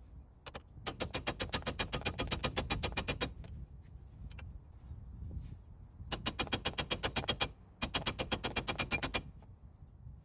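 Ratchet wrench clicking rapidly at about ten clicks a second in three runs, as a fastener on the ball-joint job is turned by hand.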